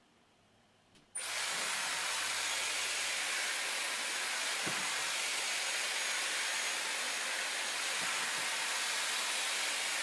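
Dyson Airwrap hair styler with its smoothing brush attachment switching on about a second in, then blowing a steady rush of air.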